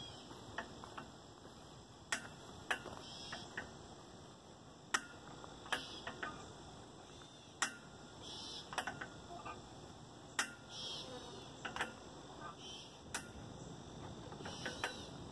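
Metal chains of playground swings clicking at uneven moments as two swings go back and forth, over a steady high drone of insects.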